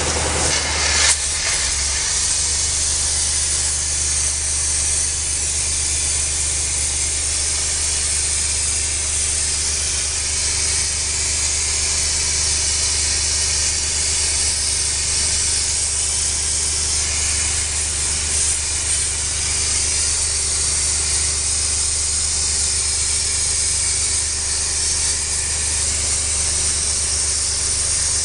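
Graffiti-removal spray jet hissing steadily against a stone pillar as it strips spray paint, with a steady low machine hum underneath.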